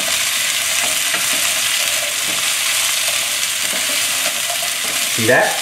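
Cauliflower florets frying in oil in a hot pan, a steady sizzle, while a wooden spatula stirs and scrapes them around the pan.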